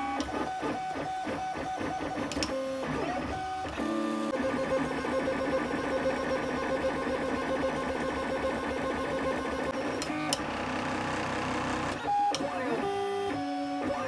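LulzBot AO-101 3D printer printing, its stepper motors whining at steady pitches that jump from one note to another as the print head moves. There are a few short rising and falling glides as the head speeds up and slows down.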